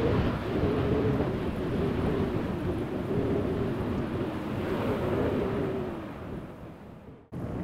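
Jet airliner engines rumbling during a pass on landing, with crosswind buffeting the microphone. The rumble fades about six seconds in and cuts off abruptly near the end.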